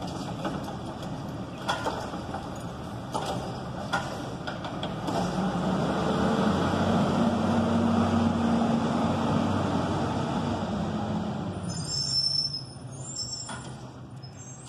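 Crane Carrier garbage truck's engine running. It rises to a louder, steadier drone in the middle and then fades as the truck moves off. A few sharp clanks come early, and brief high-pitched squeals come near the end.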